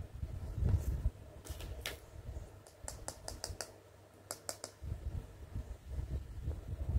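Hands handling a small clear plastic charm: scattered light plastic clicks and taps, several in quick succession in the middle, with low rubbing and bumping of handling near the start and near the end.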